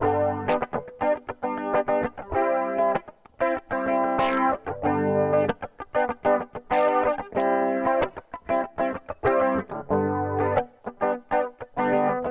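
Electric guitar played through a Tom'sline chorus pedal: held chords alternate with short strums and picked notes, with a faint steady high tone under it.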